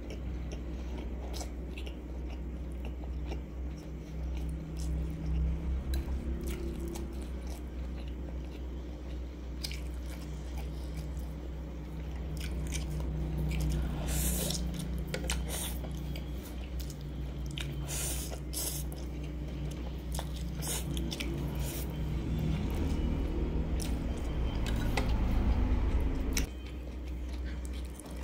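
Close-miked chewing of spicy instant noodles, with wet mouth clicks and a few louder slurps of noodles around the middle, over a steady low hum.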